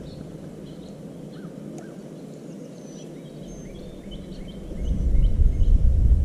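Birds chirping and calling over and over in quick short notes. From about five seconds in, wind buffets the microphone with a loud low rumble.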